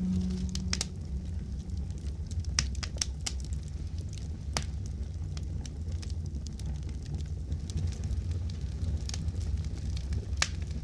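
Wood fire burning, with irregular sharp crackles and pops over a steady low rumble.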